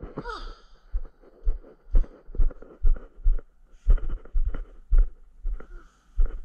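Footsteps of a person walking, about two steps a second, heard as low thumps, going from a wooden deck onto paving. A short whining sound with falling pitch comes right at the start.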